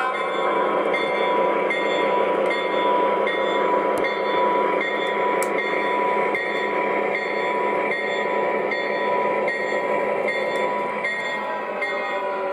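O gauge Conrail GP30 model diesel locomotive running along three-rail track, its onboard sound system playing a steady diesel engine sound over the rumble of its wheels on the rails. A steady whine runs through it and fades out near the end.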